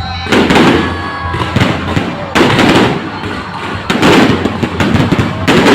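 Aerial fireworks going off in quick succession: four loud blasts about a second and a half apart, each starting sharply and fading over about a second, with crackling pops between them.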